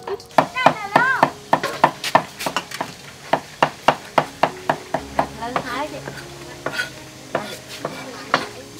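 Cleaver chopping on a round wooden chopping board, a rapid run of sharp chops, about three to four a second.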